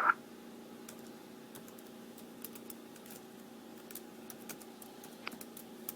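Faint, irregular light clicks over a steady low hum, in a gap between radio transmissions.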